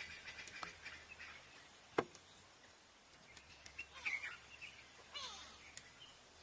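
Small birds chirping: scattered short high chirps and a couple of quick falling notes, with a single sharp click about two seconds in.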